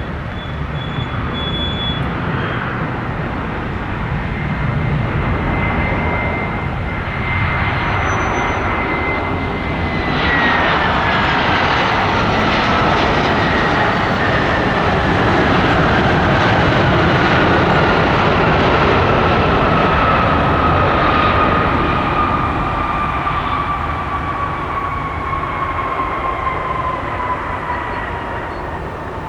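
Airbus A319-114's CFM56 jet engines passing close by on landing. A steady high whine drops in pitch about a third of the way in as the jet goes past, then keeps sliding slowly lower over a rushing engine noise, which is loudest in the middle and fades towards the end.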